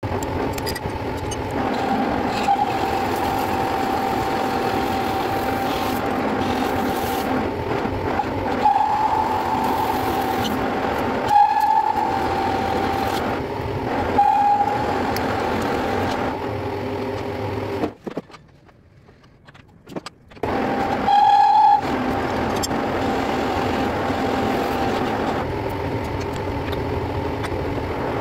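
Metal lathe running as a steel shaft is turned in its spinning three-jaw chuck: a steady machine noise with a whining tone, swelling louder briefly a few times. The sound drops away for about two seconds past the middle, then resumes.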